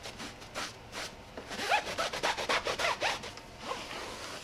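A cloth towel rubbing back and forth on a tire's rubber sidewall, wiping off foaming tire cleaner and loosened grime, in quick irregular strokes that bunch up and grow louder in the middle.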